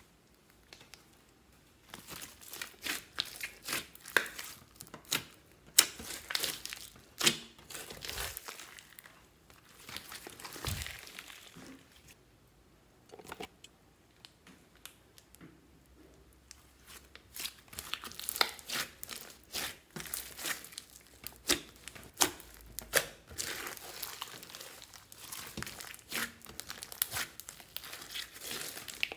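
Hands squeezing and stretching a large mass of sticky slime studded with small beads, giving runs of wet crackling, popping and tearing sounds. The crackles start about two seconds in, fade to a lull of several seconds in the middle, then pick up again.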